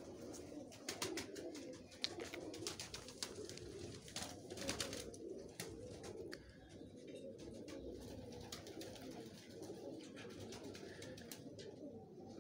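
Domestic pigeons cooing in their loft, a faint continuous chorus, with scattered light clicks mostly in the first half.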